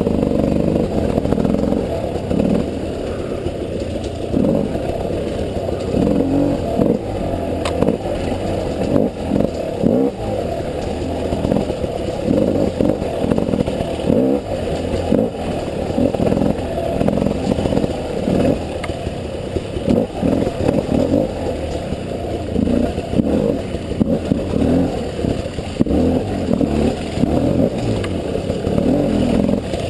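300cc two-stroke enduro motorcycle engine running at low revs with frequent short throttle blips, along with clattering of the bike over rough ground. The sound is muffled, with little high-pitched content.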